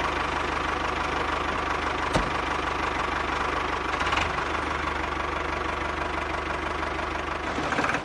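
Small motor of a miniature model tractor running steadily, driving its gear-driven spading arms, with one brief click about two seconds in.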